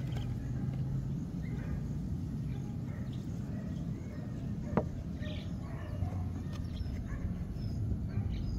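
Outdoor ambience: a steady low rumble with birds chirping on and off, more often in the second half, and one sharp click about halfway through.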